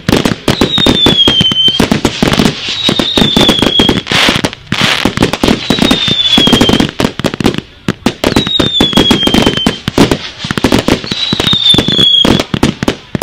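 Fireworks going off continuously: a rapid, dense string of sharp cracks and bangs, with a falling whistle about every two seconds.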